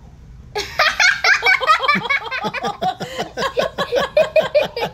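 Someone laughing hard: a long run of quick, loud laughter pulses, about five or six a second, starting about half a second in.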